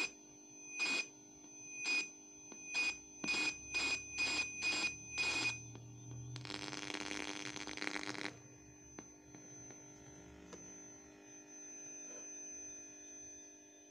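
Electronic beeps from a small FM radio receiving a homemade transmitter, about once a second at first and then quickening to two or three a second, over a steady high whine. About halfway the beeps give way to two seconds of hiss, then a faint steady hum.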